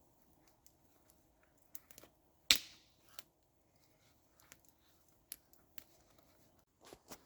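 Campfire burning low, crackling with scattered sharp pops and snaps; the loudest pop comes about two and a half seconds in.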